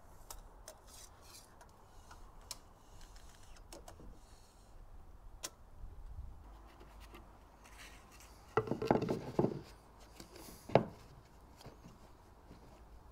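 Hands and a tape measure working at a hole in a boat deck, with small clicks and rubbing. A plywood piece is then handled and set into the hole, giving a clatter of wooden knocks just under nine seconds in and a single sharp knock at about eleven seconds.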